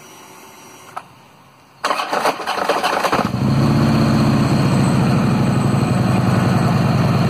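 A 2009 Harley-Davidson Road King's 96 cubic inch Twin Cam V-twin cranks on the starter with a clunking rattle, catches about three seconds in, and then idles steadily. The clunk on starting comes from the engine compensator rattling back and forth because its spring pack is worn out and weak.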